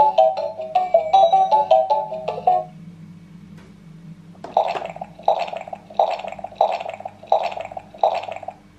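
Electronic sounds from a battery-powered Mickey Mouse toy playset. A quick, bright beeping melody stops nearly three seconds in, and after a short pause a short electronic sound effect repeats six times, about every 0.7 seconds.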